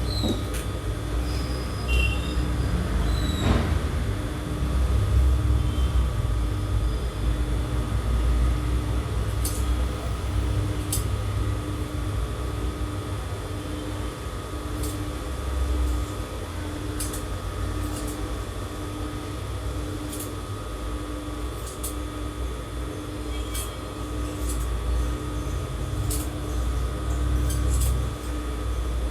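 Electric sewing machine running steadily while stitching, its motor giving a continuous low hum, with a few light clicks.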